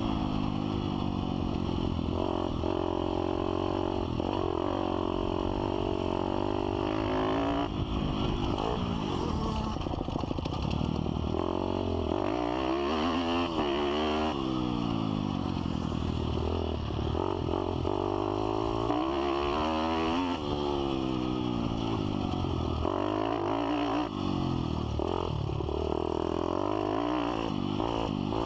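Pit bike's single-cylinder four-stroke engine being ridden hard, revving up and dropping back again and again as it accelerates, shifts and slows for the turns.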